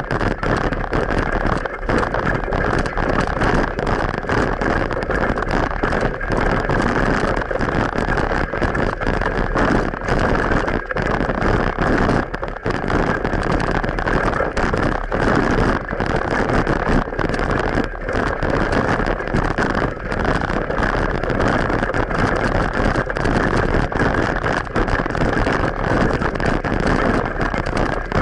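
Continuous wind rush and road rumble from riding a bicycle, with wind buffeting the action camera's microphone; the noise dips briefly again and again.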